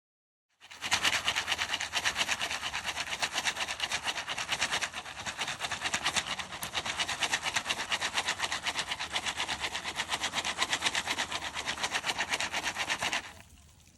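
Jiffy Pop popcorn popping in its foil pan: a dense, fast run of sharp pops that starts within the first second and stops about a second before the end.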